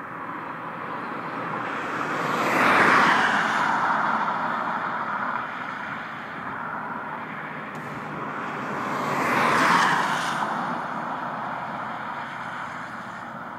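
Two road vehicles passing by at highway speed, about seven seconds apart. Each swells into a loud whoosh of tyre and wind noise and then fades away.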